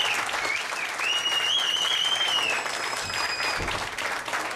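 Audience applauding at the end of a stage performance, with a high, wavering whistle from the crowd over the clapping starting about a second in.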